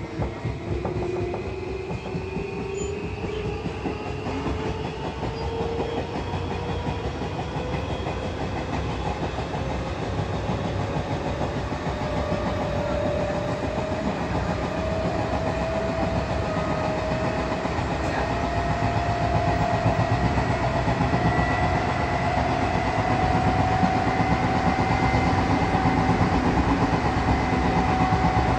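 Odakyu 8000 series field-chopper-controlled electric train heard from inside the car while accelerating: the traction motor whine climbs steadily in pitch over a continuous wheel-and-rail rumble with clacking over rail joints, growing gradually louder.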